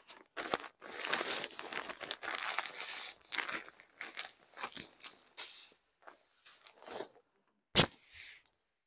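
Crinkly synthetic fabric of a sleeping bag rustling and crumpling in uneven bursts as it is pulled out of its stuff sack and unrolled, with one sharp knock near the end.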